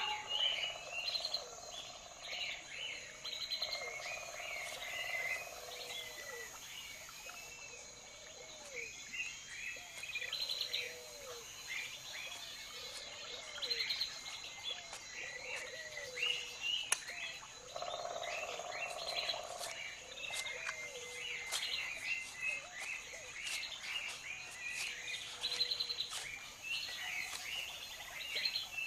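Forest wildlife ambience: many birds chirping in short high calls, over a low call that repeats about every second and a half.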